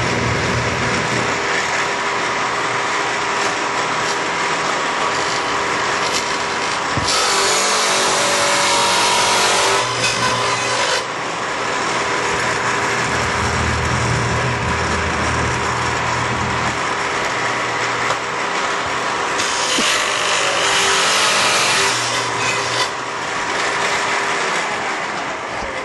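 Shopsmith Mark V table saw with a dado blade, its motor running steadily. Twice the blade cuts a groove through a board, a harsher sawing sound of about three seconds each time, about a quarter of the way in and again past two thirds. Near the end the motor winds down, its pitch falling.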